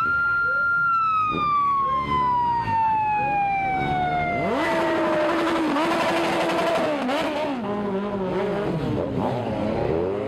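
A siren holds a high note, then winds slowly down over about five seconds, over motorcycle engines revving up and down. About halfway in, the bikes pull away and pass close by with a denser engine noise.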